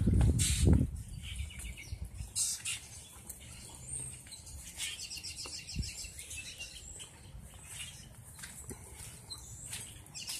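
Birds chirping in short, rapid trills, several times over, with a brief low rumble in the first second.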